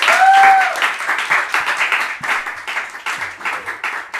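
Small audience applauding at the end of a song, with a short cheer from one voice near the start; the clapping then thins out and fades.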